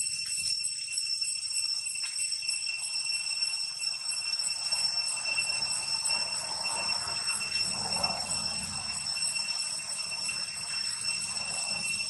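Insects outdoors, making a steady high-pitched ringing drone that holds several pitches and never lets up.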